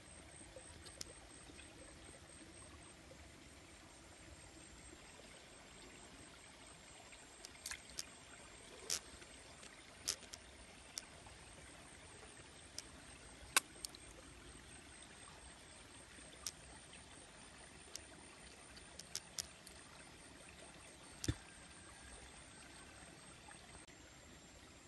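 Shallow rocky stream trickling faintly and steadily, with about a dozen sharp little ticks and splashes scattered through the middle.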